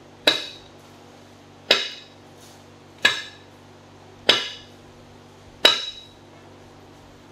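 Square metal roasting spit knocked down sharply five times at an even pace, a little over a second apart, each knock a hard clank with a brief metallic ring, as a whole lamb carcass is driven onto the spit.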